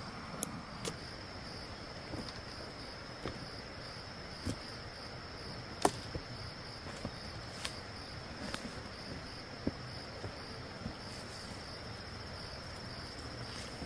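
Steady high-pitched insect drone, with scattered sharp knocks or clicks at irregular intervals; the loudest is about six seconds in.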